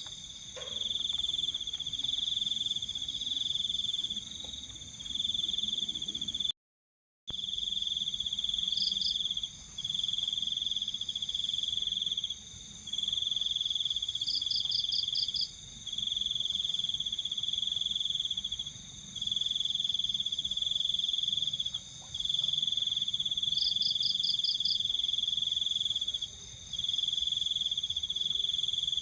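Night insects calling: a loud cricket trill in bouts of two to three seconds with short breaks, over a steady higher-pitched insect drone, and every few seconds a quick run of pulses from another insect. The sound cuts out completely for under a second about seven seconds in.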